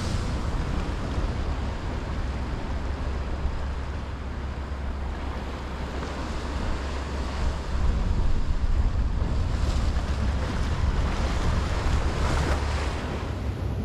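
Sea waves washing against a rock wall, with wind rumbling on the microphone. The wash swells louder several times in the second half.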